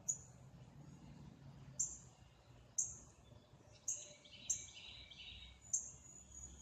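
A small bird chirping: about six short, high chirps at irregular intervals, with a fainter twitter in the middle.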